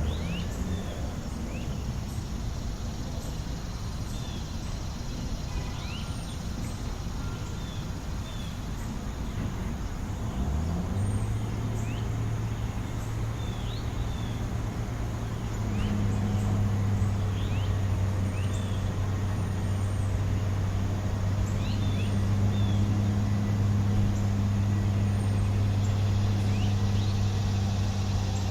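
City traffic hum with a vehicle engine that settles into a steady low idle drone about ten seconds in, growing louder a few seconds later. Small birds chirp briefly and repeatedly over it.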